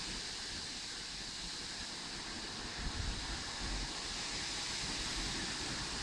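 Gusty wind blowing steadily: an even rushing hiss with a low rumble of wind on the microphone, swelling slightly about three seconds in.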